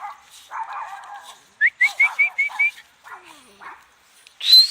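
Dog whimpering while it digs: a quick run of six short, high rising yips about a second and a half in, and a louder high squeal near the end, with scratchy noise of digging between.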